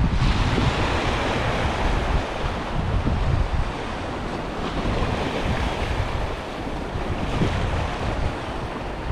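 Sea waves breaking and washing onto the shore in a continuous hiss, with a surge of surf about a second in. Wind gusts buffet the microphone as a low rumble throughout.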